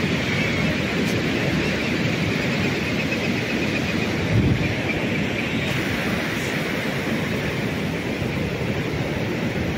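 Ocean surf breaking and washing up the beach, with wind rushing over the microphone; a brief low thump of wind on the microphone about four and a half seconds in.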